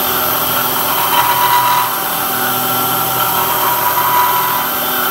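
Bridgeport milling machine, converted to CNC, with its spindle turning a half-inch three-flute carbide end mill in hot rolled steel, milling a pre-drilled hole out to final size. A steady machining whine of several tones over a constant hum, a little louder about a second in.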